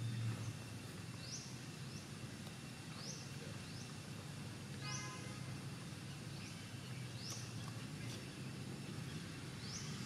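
Outdoor ambience with a bird repeatedly giving short high chirps that rise sharply, roughly once a second, over a steady low hum.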